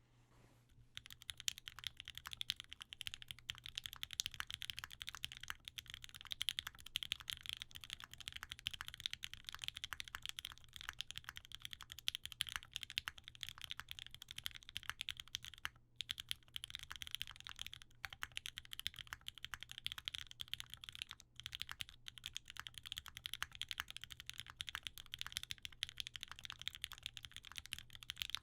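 Steady, fast typing on a FoxLab Leaf65 mechanical keyboard with lubed OP Black switches, an FR4 plate and GMK ABS keycaps: a dense run of key clacks starting about a second in, with two short pauses past the middle.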